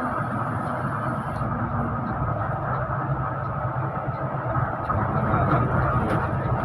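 Steady engine hum and road noise of a moving bus, heard from inside the cabin.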